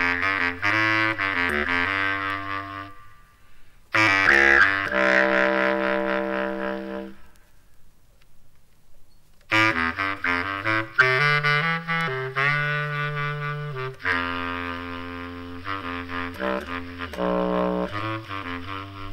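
Jazz quartet recording played from a vinyl record: a saxophone plays phrases over low bass notes. The music stops for about two seconds midway, then resumes.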